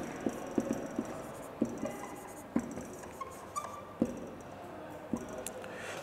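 Marker writing on a whiteboard: irregular short taps and brief squeaks of the tip as words are written.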